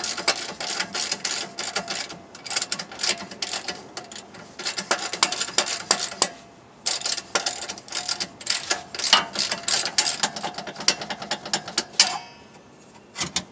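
A 15 mm ratchet clicking in quick runs as it backs out the lower mounting bolt of a rear shock absorber, with a short pause about six seconds in and stopping about twelve seconds in.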